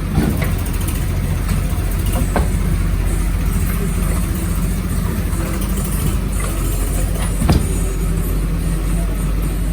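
JCB digger's diesel engine running steadily, with a few sharp knocks over it, the loudest about seven and a half seconds in.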